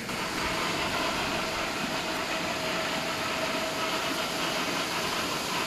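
Steady machine noise with a faint, unchanging hum running through it.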